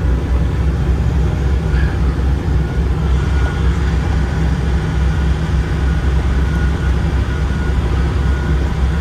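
Semi truck's diesel engine running steadily as the rig drives off, a deep even rumble.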